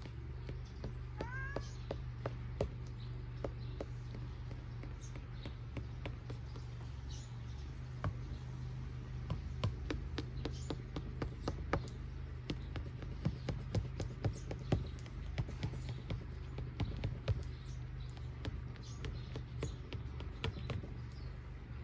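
Knife blade clicking and scraping against a metal platter while cutting layered flatbread into pieces, in irregular taps that grow more frequent after about eight seconds. A short rising animal call sounds about a second in.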